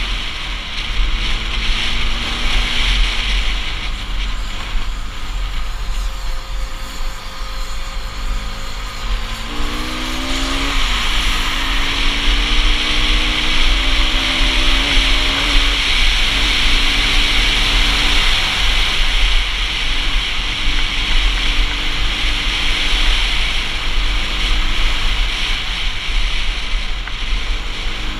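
Bajaj Pulsar RS200 motorcycle riding at speed. Its single-cylinder engine note rises and falls with the throttle, with a sharp climb and drop in pitch about ten seconds in, under steady wind rush on the camera's microphone.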